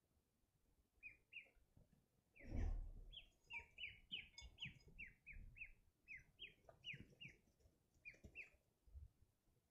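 Domestic ducklings peeping faintly: a run of short, high, falling peeps, several a second, starting about a second in and stopping near the end. A low thump about two and a half seconds in is the loudest sound.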